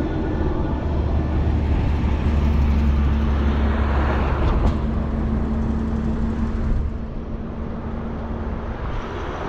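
A motor vehicle passes close by: a low engine rumble with a steady hum and tyre hiss that swell to a peak about four seconds in, then fade.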